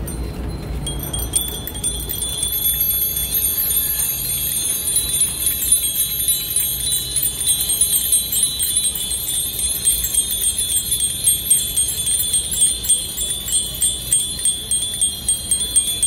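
Many bicycle bells ringing together from a crowd of cyclists, a dense high-pitched jangle that starts about a second in and grows to a pulsing beat in the later seconds.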